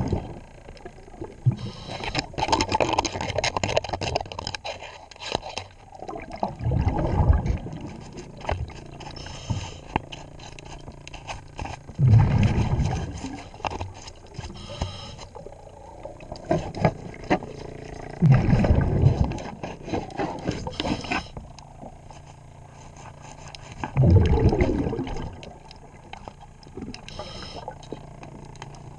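A scuba diver breathing underwater: a rush of exhaled regulator bubbles about every six seconds, with scraping and clicking of hand work on a boat propeller between breaths.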